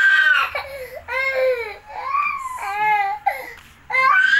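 Infant crying: a series of high wails that rise and fall, several short cries in the middle and a new long cry starting near the end.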